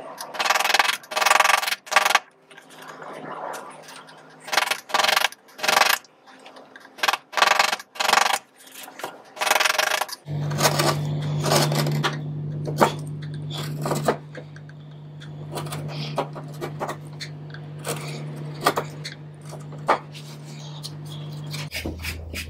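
Hand chisel paring wood: a series of short scraping cuts, several in quick succession at times. From about ten seconds in a steady low hum starts under the cuts, dropping to a lower pitch near the end.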